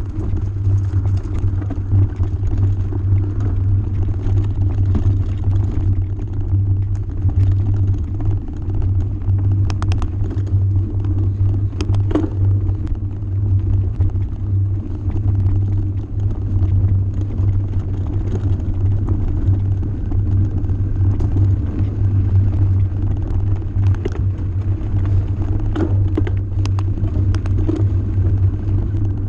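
Steady low rumble of a bike riding a rough dirt and gravel track, picked up by a camera mounted on it, with scattered sharp clicks and knocks from stones under the wheels.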